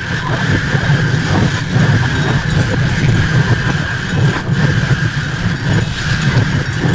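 Experimental noise music: a dense, continuous wall of rumbling, distorted noise, with a steady high tone sitting above it.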